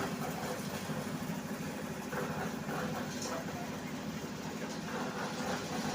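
An engine running steadily at idle with a fast, even beat, with faint voices now and then.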